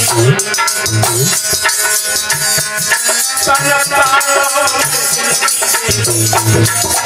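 Man singing a Hindi devotional vandana to Durga, with instrumental accompaniment and a steady rhythmic rattle of hand percussion.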